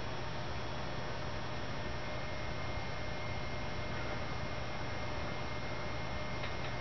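Steady low electrical hum under an even hiss, with a few faint high steady tones over it and a couple of faint ticks near the end.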